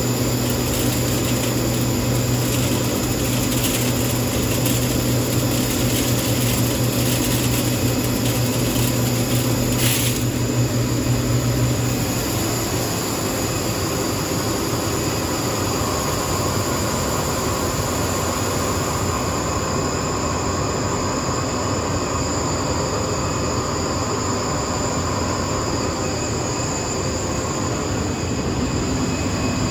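Blown-film extrusion line running: steady machine noise with a low hum that stops about twelve seconds in.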